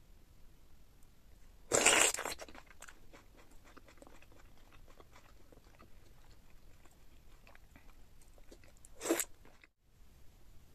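Close-miked eating of a sauce-coated seafood boil: a loud bite about two seconds in, followed by chewing with many small mouth clicks, and a second short loud bite or smack near the end.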